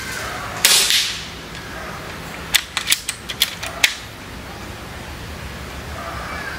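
A Sumatra 2500 .25-calibre PCP air rifle fires one shot on its low power setting: a sharp crack about half a second in that quickly dies away. About two and a half seconds in comes a quick run of metallic clicks as the rifle is cocked and the next pellet is loaded.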